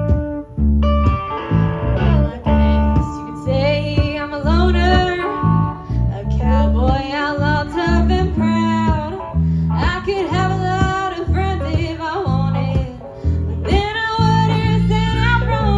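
Live country band playing a song, with a guitar carrying a bending lead melody over bass.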